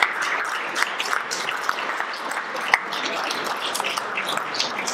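Applause from a roomful of people: many hands clapping steadily after a speech.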